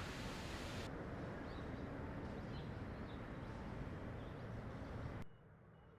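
Steady outdoor background noise with a few faint bird chirps. Just over five seconds in it cuts sharply to a much quieter background.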